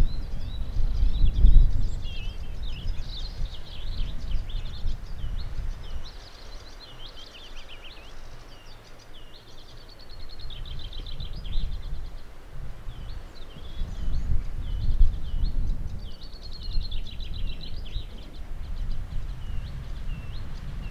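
Several small songbirds singing, with quick chirps and rapid trills, over an uneven low rumble that is loudest in the first two seconds and again from about halfway through.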